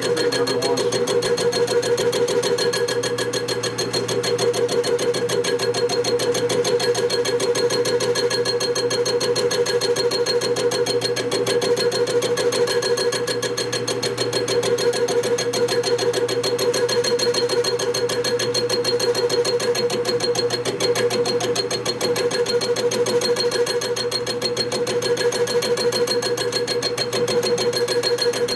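Machine tool running steadily, a constant whine with a fast, even rattle.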